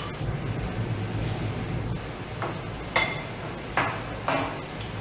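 Utensils clinking against dishes as someone eats: four sharp clinks in the second half, one with a short metallic ring, over a steady low hum of room noise.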